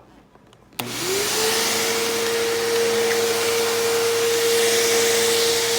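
Bissell CleanView PowerTrack Deluxe upright vacuum switched on about a second in, its motor spinning up quickly to a steady whine over the rush of suction air.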